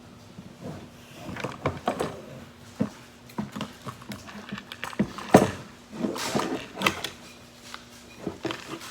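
Plastic toy packaging being handled and pulled at, with irregular crinkles, crackles and small knocks and a sharper knock about five seconds in, over a faint steady hum.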